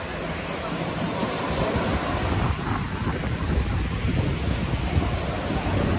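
Sea waves washing onto a sandy beach, with wind buffeting the microphone in a heavy low rumble.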